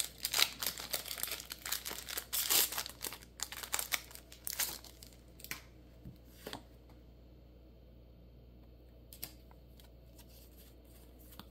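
Foil wrapper of a Pokémon booster pack crinkling and tearing as it is ripped open, busy for about the first five seconds. After that come a few faint clicks, then near quiet.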